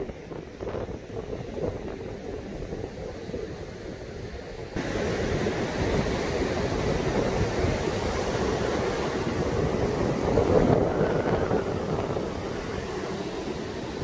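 Heavy typhoon surf breaking and washing up a sandy beach, mixed with wind buffeting the microphone. The sound jumps suddenly louder about five seconds in.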